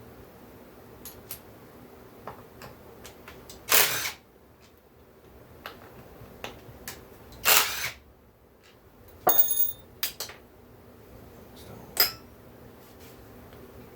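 Small metal chainsaw parts and hand tools being handled on a bench: scattered light clicks, two short rattling clatters, and a cluster of clinks with a brief bright metallic ring past the middle, then one more sharp clink.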